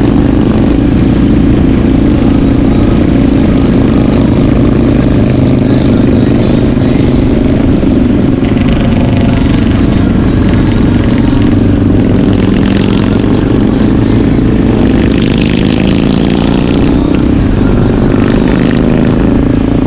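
Motorcycle engine running steadily at cruising speed, its pitch drifting a little up and down, over a constant rush of wind and road noise while riding.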